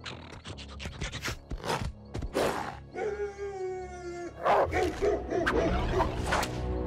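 Cartoon slug hounds (monstrous hound creatures) snarling and barking, with a quick run of sharp clicks and knocks in the first couple of seconds and one held howl about three seconds in, over background music.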